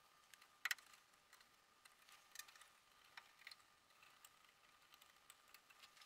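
Faint, scattered small clicks and ticks of wires and plastic connectors being handled at a furnace control board, the sharpest about a second in, over a faint steady high tone.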